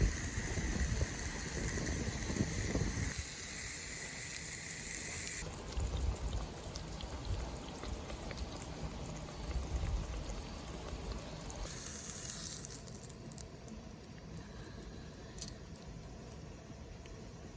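Food sizzling in hot fat over a campfire: a steady hiss that changes level abruptly a few times, with a few faint crackles near the end.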